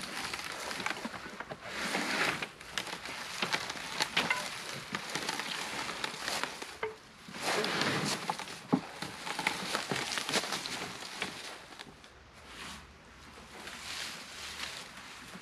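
Irregular rustling and crackling, with many scattered sharp clicks and a few louder swells, typical of movement through brush.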